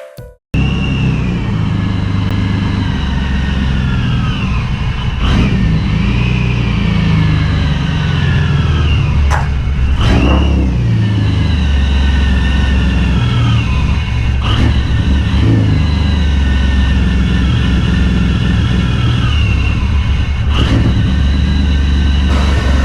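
BMW E36 M3 engine running, with its pitch falling away again and again every few seconds as the revs drop. It comes in abruptly about half a second in.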